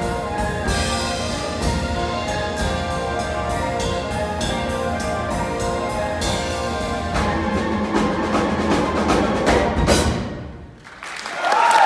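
Live pit orchestra playing driving dance music with heavy percussion and timpani, building to a final loud hit about ten seconds in. The music stops, and near the end the audience breaks into applause and cheering.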